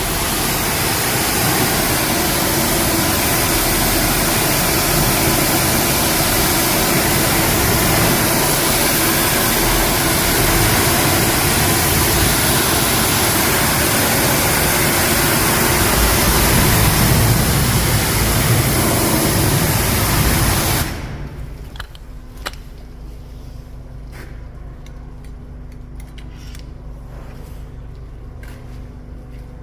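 High-pressure foam spraying from a car-wash foam lance: a loud steady hiss for about twenty seconds that cuts off sharply, leaving a quieter steady hum with a few clicks.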